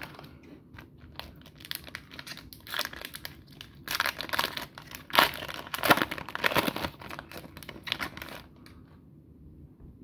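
Foil wrapper of an Upper Deck hockey card pack crinkling as it is handled and torn open by hand, loudest in the middle and dying away near the end.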